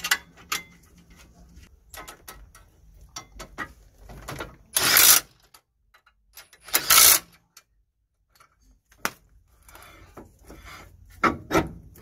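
A cordless power driver on a socket extension runs the lower brake caliper bracket bolt in, in two short bursts about five and seven seconds in. Light metallic clinks of tools and sockets come before and after.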